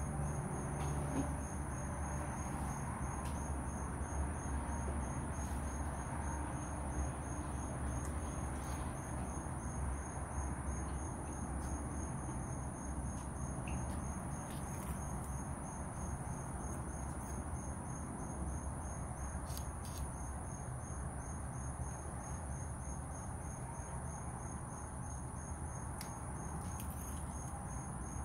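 Insect chorus of crickets: a steady high trill with a rapidly pulsing note just below it, over an even low background hum. A few faint clicks are scattered through.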